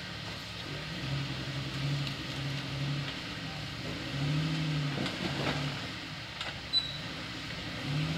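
Lifted Jeep Wrangler's engine running at low revs while rock crawling over boulders, the pitch rising and falling with short dabs of throttle. A few brief knocks come about five seconds in.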